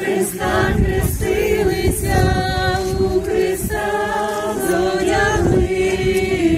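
A congregation singing together without accompaniment, a short hymn refrain of held notes.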